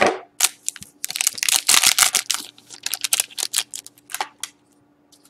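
Foil wrapper of an Upper Deck Artifacts hockey card pack crinkling and tearing open as the cards are pulled out: a run of crackling rustles, densest in the middle, that dies away about four and a half seconds in.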